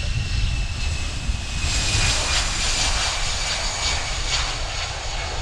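Airbus A320's CFM56 jet engines at takeoff power as the airliner rolls past on its takeoff run. A steady high whine slides slightly down in pitch, and the engines' rasp swells about two seconds in.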